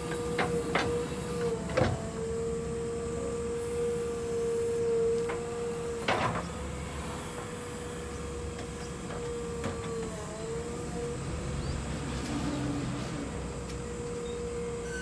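JCB 3DX backhoe loader's diesel engine and hydraulics running as the backhoe digs soil: a steady whine with a low rumble beneath. There are a few sharp knocks in the first two seconds and one about six seconds in. The whine dips briefly in pitch about ten seconds in.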